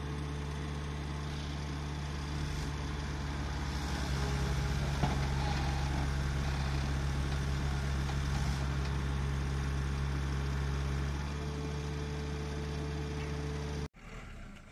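Heavy diesel engine of a JCB backhoe loader running steadily. It works harder and louder from about four seconds in, then eases a little, and the sound cuts off abruptly near the end.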